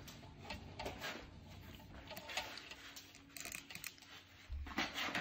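Faint scattered clicks and rustles of pizza being cut and handled on a board beside its cardboard box, over a faint steady hum.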